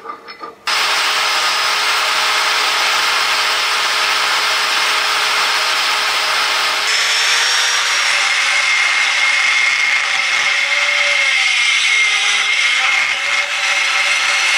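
Electric die grinder with a rotary burr running at high speed and grinding into a steel tube, a steady high whine over harsh grinding noise. It starts about a second in, and its tone shifts about halfway through.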